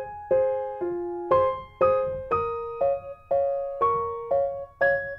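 Background piano music: gentle notes and chords struck about twice a second, each fading before the next.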